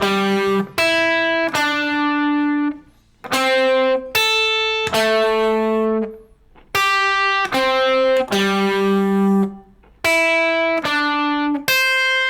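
Guitar playing an intervallic, string-skipping lick in A minor pentatonic, position 1. Single notes ring out in groups of three, each group followed by a brief pause.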